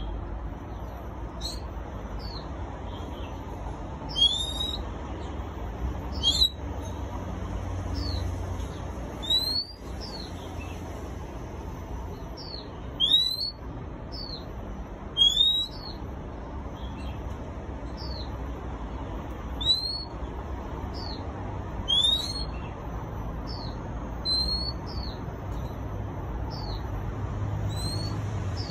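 Caged oriental magpie-robin singing: short, sharp whistled notes that sweep upward, given singly or in quick pairs every second or two, over a steady low background rumble.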